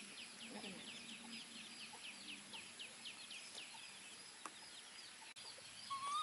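Chick peeping steadily, a fast run of short, high, falling peeps about four or five a second, thinning out in the second half. A short rising squeak comes near the end.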